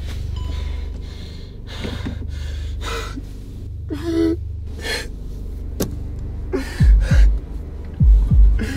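A man gasping and breathing hard in short bursts over the low, steady hum of a moving car's cabin. From about seven seconds in, loud deep thumps come in pairs like a pounding heartbeat and become the loudest sound.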